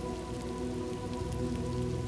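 Steady rain falling, with faint patter of individual drops, over a soft held musical drone.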